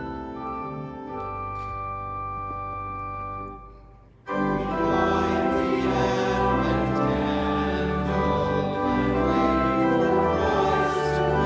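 Church organ playing a soft, sustained passage that dies away about four seconds in, then coming back much louder with full held chords.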